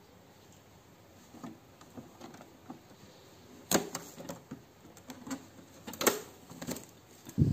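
Scattered clicks and knocks from hands handling an Epson L3210 inkjet printer's plastic body, with the two sharpest about four and six seconds in.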